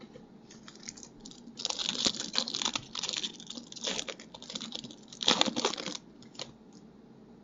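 Crinkling and tearing of a trading-card pack's wrapper as it is opened, a run of rustling, crackling bursts with the loudest near the end.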